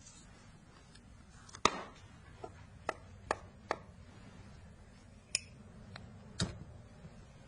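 About seven sharp clicks and knocks at uneven intervals over faint room tone, the loudest about a second and a half in.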